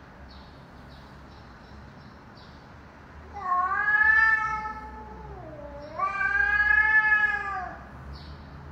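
Cats caterwauling: two long, drawn-out yowls with a slowly wavering, sliding pitch, the first starting about three seconds in and the second about six seconds in.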